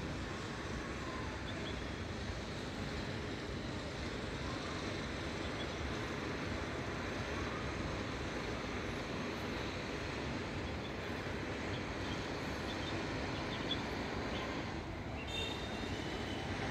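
Steady background rumble of distant traffic, with a few faint high chirps about two seconds in and again near the end.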